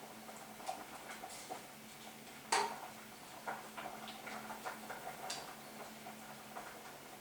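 Scattered light clicks and ticks of kitchen utensils against a cooking pot, with one sharper clink about two and a half seconds in, over a faint steady hum.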